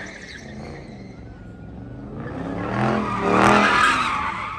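Dodge Charger doing donuts: engine revving and tires squealing on the pavement, building to a loud rev about three and a half seconds in, then easing off.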